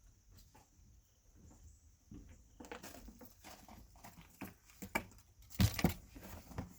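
Clatter of knocks and clicks as things are rummaged through and pulled out of storage, sparse at first, busier from a few seconds in, with a couple of louder thuds near the end.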